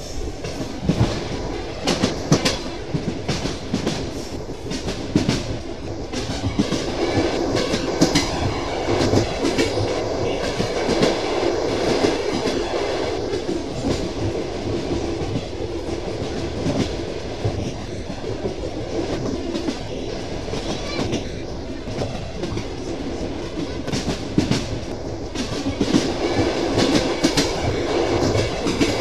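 Train wheels clattering over rail joints, heard from aboard the moving train: groups of clickety-clack beats over a steady rolling rumble.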